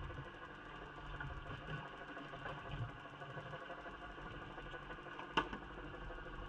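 Muffled underwater audio from a camera in a waterproof housing on a jig line: a steady mechanical hum with engine-like tones. One sharp click comes a little after five seconds in.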